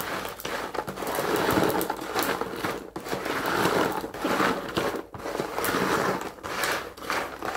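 Crisp fried pork cracklings being stirred in a plastic basin with a metal spoon to mix in salt: a rustling, scraping clatter of the pieces, coming in uneven strokes that rise and fall. It starts suddenly.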